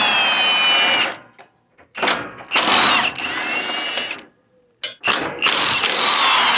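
Power tool spinning a socket to back out bolts, run in three bursts of one to two seconds, with short trigger blips before the second and third. Its motor whine drops in pitch as each run winds down.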